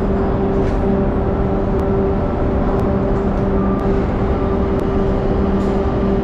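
Steady mechanical hum of a ship's enclosed vehicle deck, a constant low drone over a rumble, with a few faint ticks.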